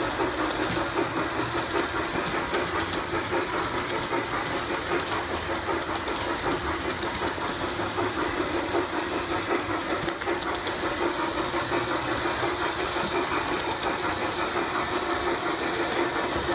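G-scale model steam locomotive running steadily along its track: a constant motor-and-gear hum with the rattle of its wheels on the rails.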